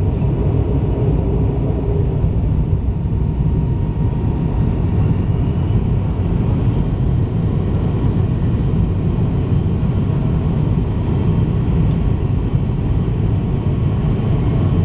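Steady roar of jet engines and airflow heard inside an airliner's cabin on the approach to landing, heaviest in the low end, with a faint steady whine above it.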